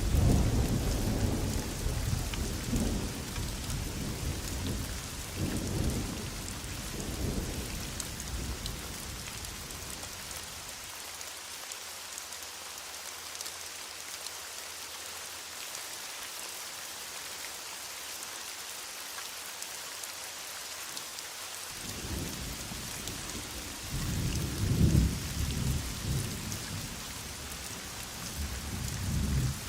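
Heavy rain falling steadily, with rolling thunder. The thunder rumbles through the first several seconds, fades to leave the rain alone in the middle, then rolls in again near the end, loudest a few seconds before the close.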